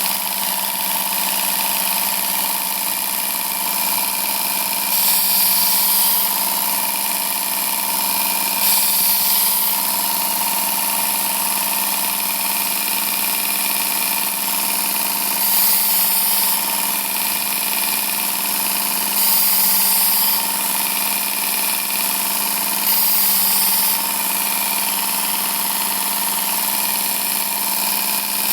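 Work Sharp Ken Onion Elite belt sharpener with the blade grinding attachment running steadily, its motor and abrasive belt humming. Five times, a knife blade is drawn across the belt in a pass of about a second, adding a high grinding hiss.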